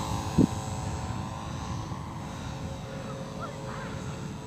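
HobbyZone Super Cub S RC plane's electric motor and propeller running with a steady whine, with a short thump about half a second in.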